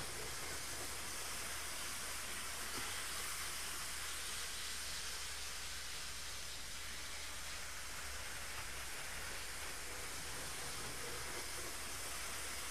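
OO gauge model InterCity APT-P train running at speed around the layout's track: a steady hissing rush of wheels and motor on the rails.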